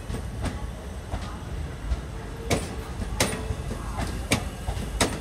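Passenger coaches of an Indian Railways express train rolling slowly past as it departs, a steady low rumble with a sharp clack about once a second as the wheels cross rail joints.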